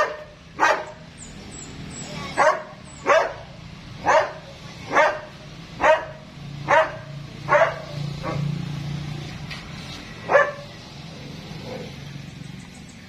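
A dog barking repeatedly: about ten sharp single barks at uneven intervals, with a longer pause before the last one.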